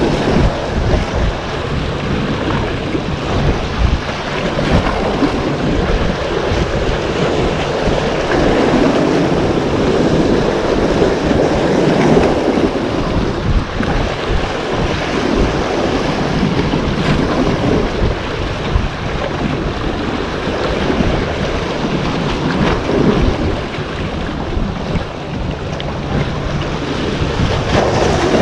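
Sea waves washing and splashing against the rocks of a breakwater, with wind buffeting the microphone in a steady low rumble.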